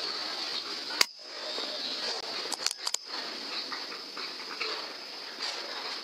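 A single sharp airgun shot about a second in, followed a moment later by a few quick clicks, over a steady high-pitched hiss.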